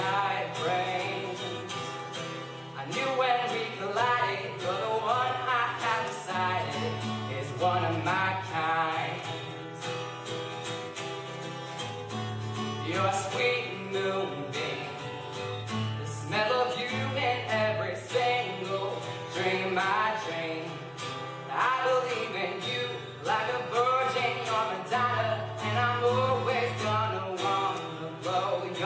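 A male voice singing over a strummed steel-string acoustic guitar. The sung lines rise and fall in phrases, with the guitar's steady chords and strums beneath.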